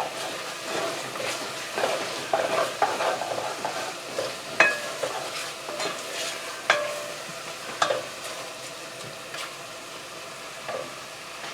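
Chicken pieces frying with curry paste and spices in oil in a pot, sizzling as they are stirred, with a few sharp clicks of the spoon knocking against the pot.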